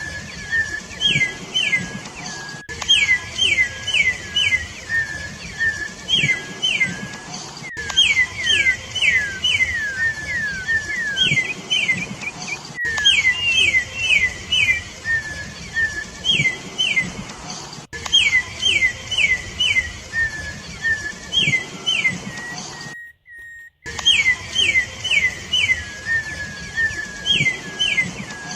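Campo troupial (corrupião) singing: quick groups of three to five sharp, down-slurred whistled notes, repeated over and over, with lower notes between the groups. The sound drops out for under a second about two-thirds of the way through.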